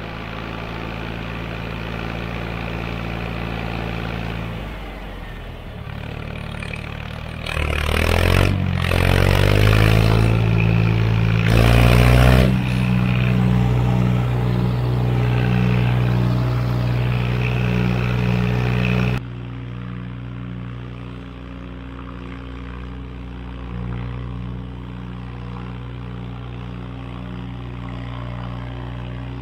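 John Deere 1020 tractor's three-cylinder gasoline engine pulling uphill, heard close by its upright exhaust stack. About eight seconds in it revs up twice with a rising pitch and then holds at higher revs. A little past midway the sound cuts to the same engine heard from farther off, quieter and steady.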